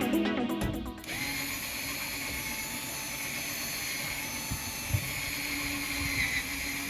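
Electronic music ends about a second in, then a cordless drill runs with a steady whine as its bit works at the van's steel roof. The bit is not a metal bit, and it is struggling to cut through.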